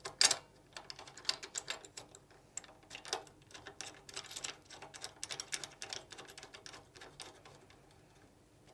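Metal post clip being tightened by hand around a post: a run of small, irregular clicks and ticks as the bolt is turned and the clip is handled. The sharpest click comes just at the start, and the clicks thin out and stop near the end.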